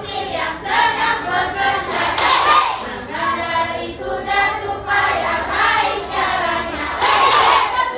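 A group of young children singing or chanting together in unison, with two louder swells, one about two seconds in and one near the end.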